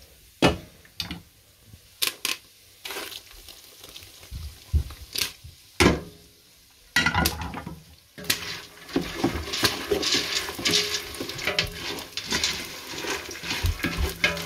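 A few knocks and clinks of cookware, then from about seven seconds in hot melted Skittles-and-butter sugar syrup sizzling as it goes onto popcorn in a stainless steel pot, with a wooden spoon stirring and scraping through it.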